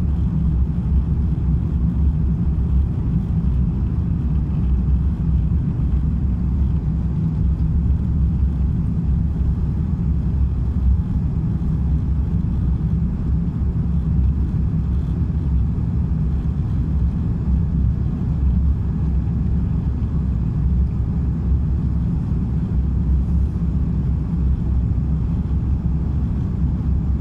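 Steady low rumble of an Airbus A350-1000's cabin noise, its Rolls-Royce Trent XWB engines and airflow heard from inside the cabin.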